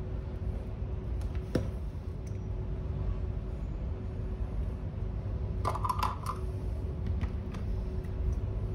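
Small clicks and taps of a metal shoe-polish tin being handled, with a short cluster of clicks about six seconds in as its lid comes off and is set down on the counter, over a steady low background rumble.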